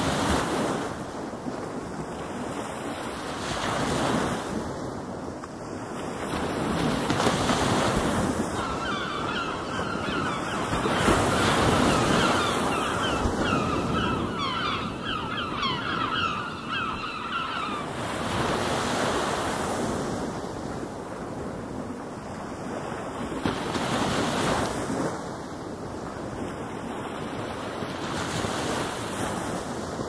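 Ocean surf: waves breaking and washing in, the rush swelling every few seconds. From about nine seconds in, a quick run of high, wavering calls sounds over the surf for around nine seconds.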